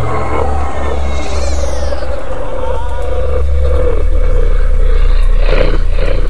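Scary demon haunting sound effect playing back: a deep, steady droning rumble with rough, animal-like voice sounds over it. It grows louder about four seconds in, with a snarling surge near the end.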